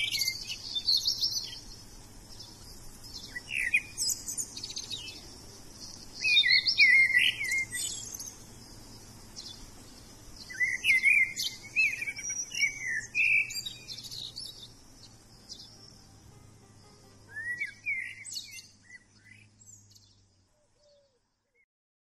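Songbirds singing: short warbling phrases every few seconds with thin high chirps between them, fading out near the end.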